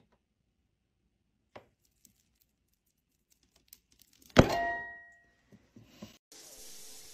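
A multi-wire soap cutter pushed down through a loaf of soap: one sharp clack about four seconds in, with a brief ringing tone that fades over about half a second, after near quiet. A steady hiss starts near the end.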